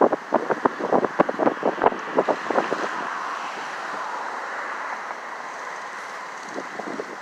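Wind buffeting the microphone in a run of irregular sharp knocks, then a steady rush like passing traffic that swells and fades in the middle.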